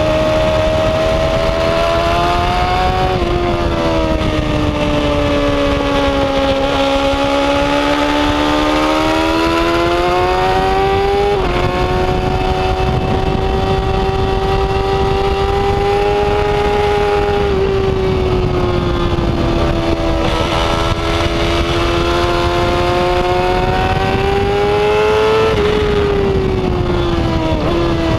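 Yamaha R6 race bike's EDR-built inline-four engine at high revs on track, its pitch climbing and falling through the corners with several quick gear changes that step the pitch suddenly, over steady wind rush.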